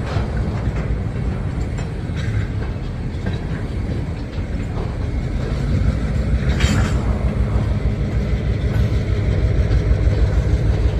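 Diesel locomotive and railcars moving during switching, a steady low rumble, with one short sharp noise about two thirds of the way through.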